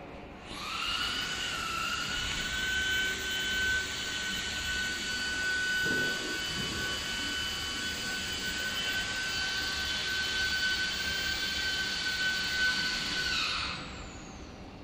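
The two high-speed spindles of a small CNC router are running with a steady high-pitched whine while they engrave MDF. The whine comes up about half a second in and winds down shortly before the end.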